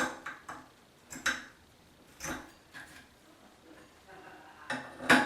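A series of separate sharp clicks and clinks of hard objects knocking together, about eight in five seconds, the loudest near the end.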